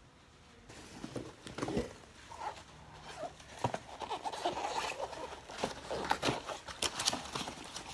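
Cardboard jigsaw puzzle boxes being handled and shuffled inside a cardboard carton: irregular sliding, scraping and light knocks of cardboard on cardboard. The handling gets busier about halfway through.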